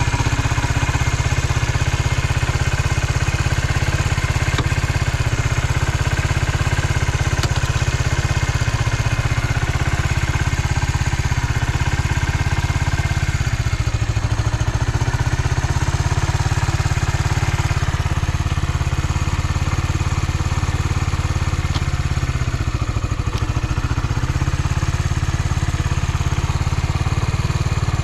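Suzuki Volty's air-cooled single-cylinder four-stroke engine idling steadily, with no unusual noises, which the seller reads as the engine being in good health.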